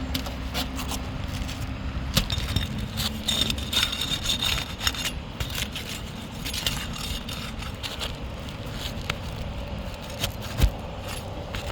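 Irregular scraping and clicking of a tool working under 3-tab asphalt shingles, prying the tabs up to get at their nails, over a steady low hum.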